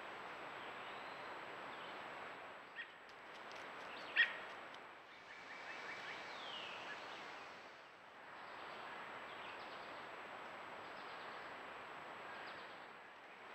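Steady woodland background hiss through a trail camera's microphone, with a few short bird chirps: a faint one a little under 3 seconds in, a louder sharp one around 4 seconds, and a falling call around 6 seconds.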